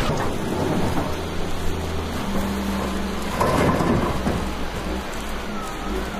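Aircraft cabin noise: a steady low engine drone under a constant rushing of air, with a brief louder surge about three and a half seconds in.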